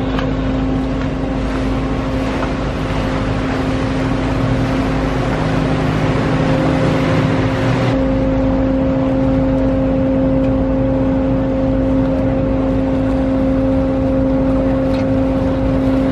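Canal tour boat's engine running steadily with a constant droning hum, over rushing water and wind noise that eases about eight seconds in.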